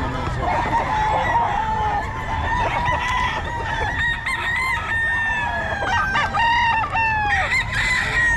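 Several roosters crowing over one another, their long drawn-out calls overlapping throughout.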